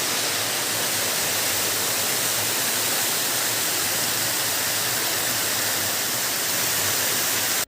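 Waterfall: water falling in a steady, even rush. It cuts off abruptly at the end.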